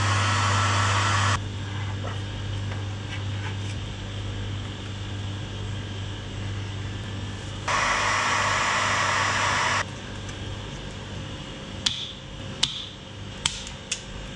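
Bosch heat gun blowing in two spells: the first cuts off just over a second in and the second runs for about two seconds in the middle, with a softer steady hum between them, used to shrink sleeving onto cable conductors. A few sharp clicks from handling tools and wires come near the end.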